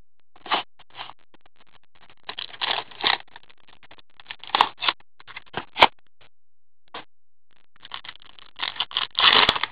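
Trading-card pack being opened and its cards handled: irregular rustling and scraping of wrapper and card stock, with a few sharp clicks and a busier run of rustling near the end.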